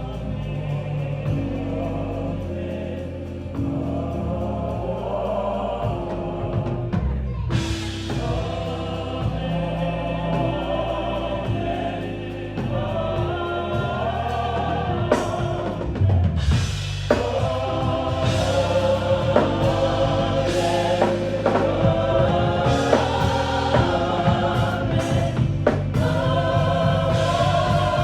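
Choir singing gospel music over bass and drums, growing fuller and louder about halfway through.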